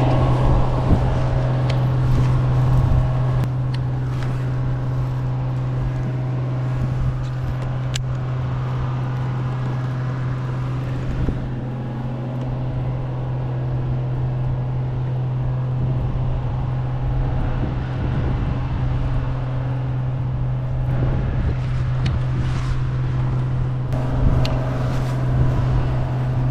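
A steady low hum, like a small motor running, over a background rush of water and wind, with a few faint clicks scattered through it.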